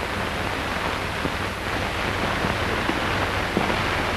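Steady hiss and crackle of an old optical film soundtrack, with a few faint clicks.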